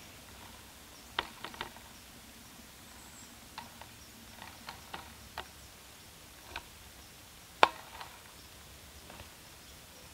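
Scattered sharp clicks and light snaps, about ten at irregular intervals over a faint steady background, with the loudest one about three-quarters of the way through.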